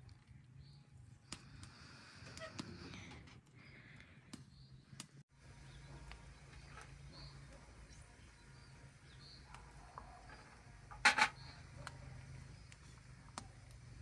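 Tea poured from a kettle into a small tea glass, followed later by a sharp double clink of glassware about eleven seconds in.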